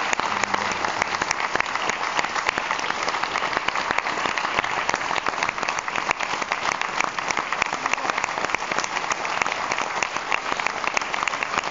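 Audience applauding steadily, a dense patter of many hands with one pair clapping close by.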